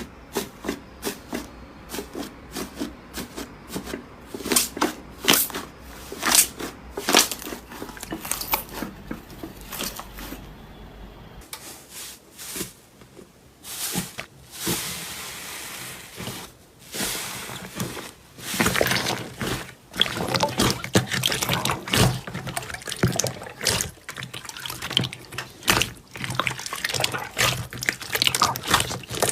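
Slime being squeezed and pressed by hand: a run of irregular wet, sticky clicks and pops, with a short stretch of steady hiss past the middle and denser crackling near the end.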